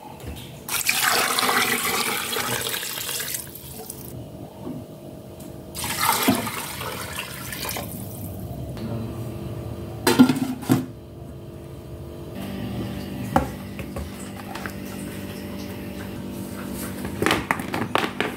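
Water running into a stainless steel pot of beef bones in two pours, followed by two sharp metallic clanks as the steel lid goes on, and a few light knocks near the end.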